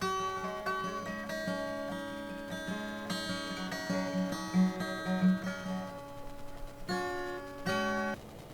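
Acoustic guitar music: plucked and strummed chords ringing one after another, stopping shortly before the end.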